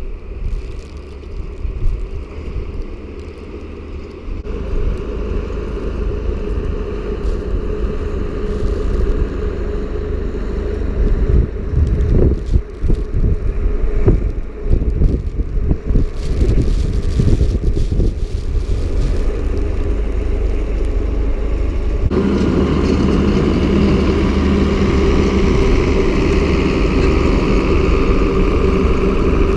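Tractor engine running and getting louder, with clattering knocks in the middle. About 22 s in, a steadier, stronger hum sets in.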